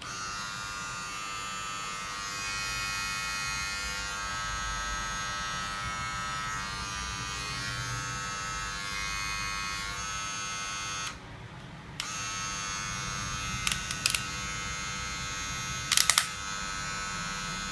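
Philips HC3418 cordless hair clipper switched on and running with a steady high electric buzz; it cuts off about eleven seconds in and starts again a second later. A few sharp clicks from handling the clipper sound over the buzz near the end, the loudest a quick cluster about sixteen seconds in.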